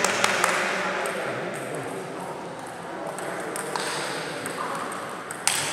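Table tennis ball clicking sharply off the rackets and the table during play, with one loud hit about five and a half seconds in.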